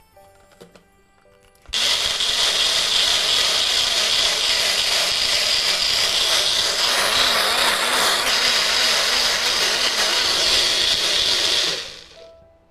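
Small bullet-style personal blender pureeing mango chunks with yogurt, run by pressing down on its jar. The motor starts abruptly about two seconds in and runs steadily with a slightly wavering hum for about ten seconds, then cuts off and spins down near the end.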